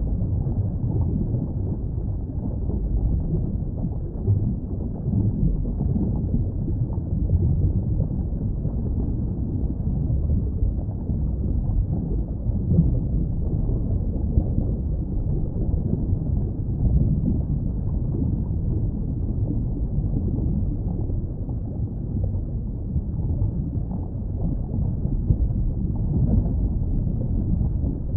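Underwater ambience: a steady, muffled low rumble with small irregular swells and no high sounds.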